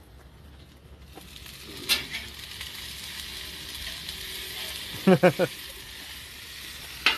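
Sliced steak, peppers and onions sizzling on a griddle in a gas grill, the sizzle rising as the lid is lifted about a second in. A metal spatula clacks on the griddle about two seconds in and again near the end, and a short burst of voice comes about five seconds in.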